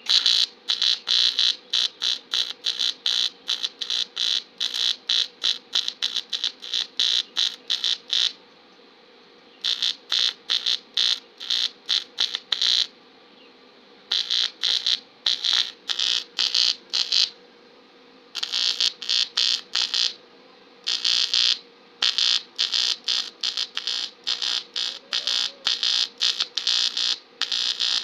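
TIG welding arc on an aluminium bicycle frame, a high buzz pulsing about three to four times a second, in runs of a few seconds broken by short pauses.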